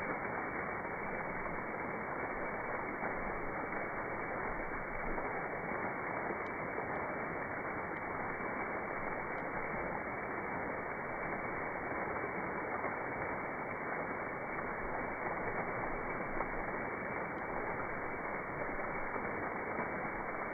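Steady, even rush of water falling in a small waterfall, with a few faint ticks now and then.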